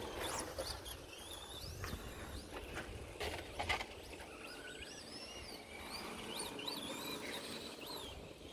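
Electric RC short course trucks' motors whining in high glides that rise and fall as they are throttled around the dirt track, with a couple of sharp knocks about three and a half seconds in.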